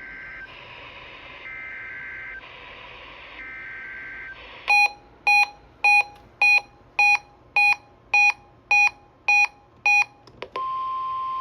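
NOAA Weather Radio Emergency Alert System signalling: three short buzzy SAME data bursts about a second apart, then ten loud beeps at about two a second. A steady warning alarm tone starts near the end.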